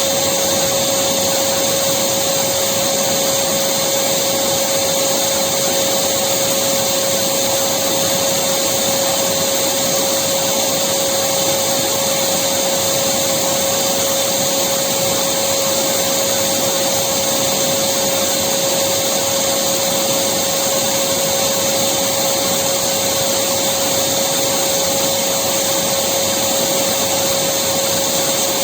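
Electric vacuum cleaner running steadily, a constant motor whine over a wide airflow hiss.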